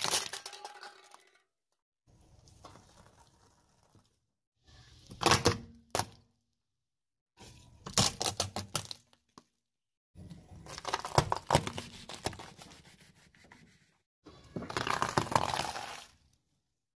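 A car tyre rolling over and crushing a series of objects one after another: aluminium drink cans, a plastic part and leafy vegetables crunching, cracking and snapping. The crushes come as six short bursts with silent cuts between them, and two sharp snaps about five and six seconds in.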